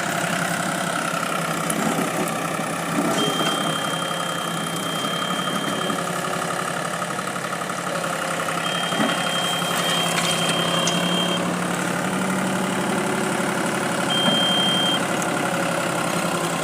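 Heavy diesel engine running steadily. A thin, high steady tone sounds over it three times, twice for a few seconds and once briefly.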